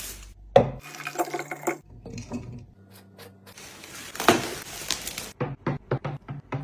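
Household containers being handled: clinks and knocks, a stretch of about a second that sounds like liquid pouring, then a quick run of light taps near the end.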